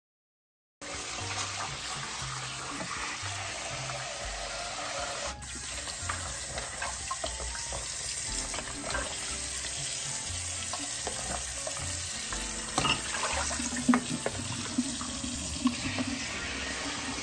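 Kitchen tap running into a bowl in the sink as hands rinse asparagus spears, a steady splashing wash of water. A few sharper splashes and knocks come near the end.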